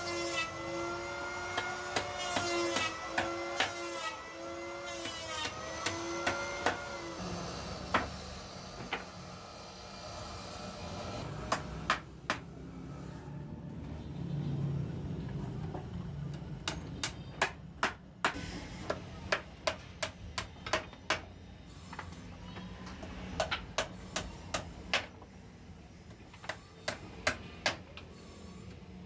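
Claw hammer driving nails into a softwood frame, with single knocks and then quick runs of strikes, about two to three a second, in the second half. For the first several seconds a power tool's motor whines and wavers in pitch, then stops.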